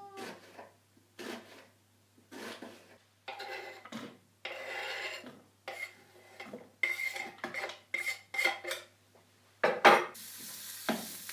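Kitchen utensils clattering and scraping on a chopping board and pan in a string of short, separate strokes. Near the end, chopped onion goes into hot oil in a frying pan and starts sizzling steadily.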